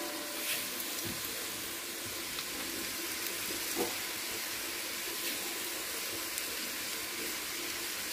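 Chicken pieces sizzling steadily in a steel pot as they fry in the juices they have released, with a few faint clicks.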